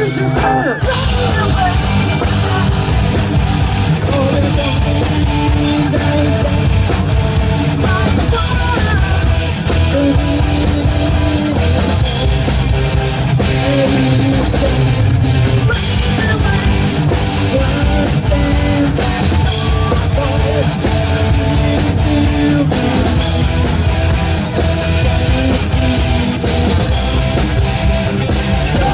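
Live rock band playing loud: electric guitars, bass guitar and drum kit, with a woman singing at times.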